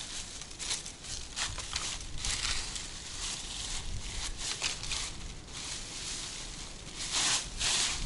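Footsteps crunching and scuffing through dry fallen leaves in uneven steps, with rustling of the leaf litter; the loudest rustle comes about seven seconds in.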